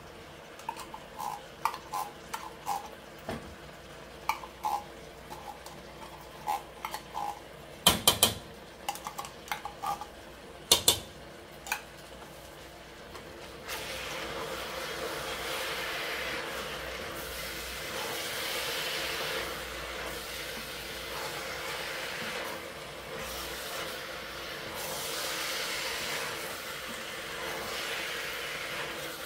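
Spoon clinking and knocking against a stainless steel cooking pot as tomato paste is added, with two sharper knocks partway through. From about halfway, a steady sizzling hiss with scraping as vegetables are stirred with a wooden spoon in the hot pot.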